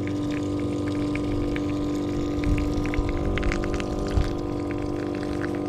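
Small battery-powered pump of a rechargeable lawn sprayer, used as a camp shower, running with a steady hum as it pumps the water out to empty the tank.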